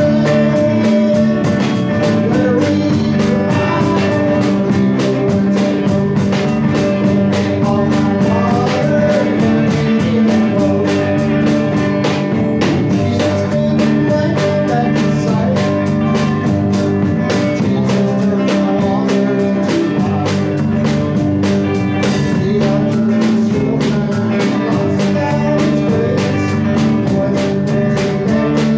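Small live band playing an instrumental passage of a gospel song: electric and acoustic guitars, electric bass and a drum kit keeping a steady beat.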